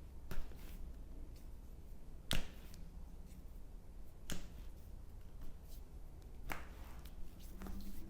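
Foot joints cracking under a chiropractic adjustment: a few sharp pops roughly two seconds apart, the loudest a little over two seconds in.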